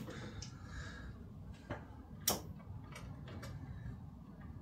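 A few light, separate clicks and taps from hands handling wiring and parts in a car's engine bay, the sharpest a little past two seconds in.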